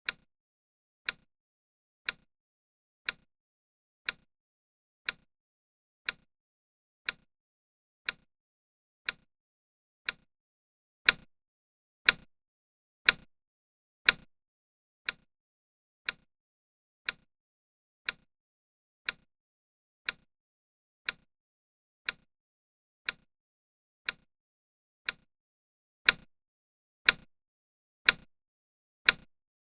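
Countdown timer tick, a sharp clock-like click once every second. Two runs of four ticks are louder, one about a third of the way through and one near the end.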